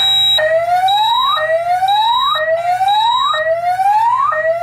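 Fire alarm voice-evacuation speakers sounding a loud rising whoop tone that repeats about once a second, together with a high-pitched beep from another alarm sounder, also about once a second. The whole system is in alarm after a smoke detector was tripped with test aerosol.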